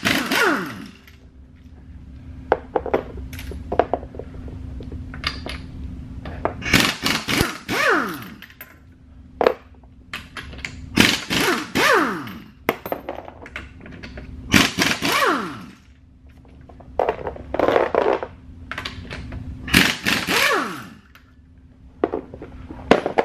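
Pneumatic impact wrench loosening the lug nuts on a Porsche 997 front wheel, in about six short runs a few seconds apart, each dying away in a falling whine as the tool spins down. Short metallic knocks and clinks come between the runs.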